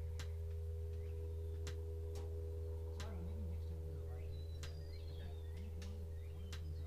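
Steady low drone and hum inside a small aircraft's cockpit, with several sharp clicks and a faint wavering tone in the second half.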